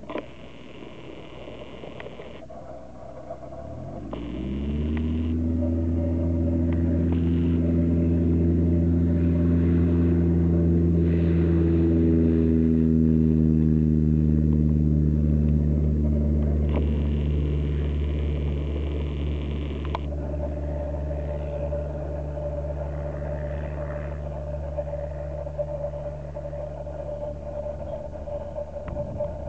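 Cessna 172 single-engine propeller plane on a touch-and-go takeoff. The engine is quiet at first, then its pitch climbs sharply about four seconds in as full throttle goes on. The steady engine-and-propeller drone grows louder as the plane rolls past, drops slightly in pitch, and fades slowly as it climbs away.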